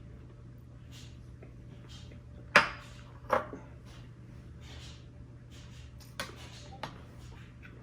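Dishes and utensils clinking and knocking on a table during a meal: a sharp knock about two and a half seconds in, another a moment later, and two lighter clinks near the end, over a steady low hum.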